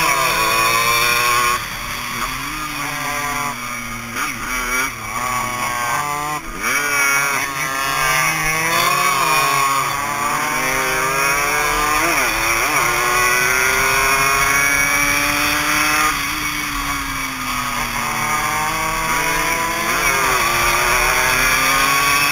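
Suzuki AX100 two-stroke single-cylinder race engines, heard from on board, revving hard through the gears. The pitch climbs and drops again and again with the gear changes and with easing off for the corners. Other bikes' engines overlap with changing pitch, loudest about 6 to 13 seconds in.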